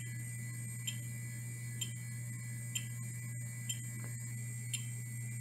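Faint regular ticking, about once a second, over a steady low hum.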